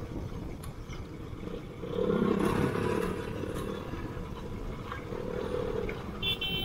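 Royal Enfield Classic 500's single-cylinder engine running through an aftermarket exhaust while riding, a steady low thump that swells louder about two seconds in. A horn beeps briefly near the end.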